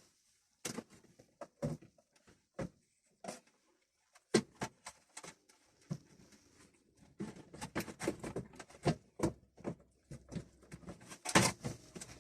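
Irregular plastic clicks, taps and light knocks of a car radio head unit and its wiring being handled and set into the dashboard, sparse at first and busier in the second half.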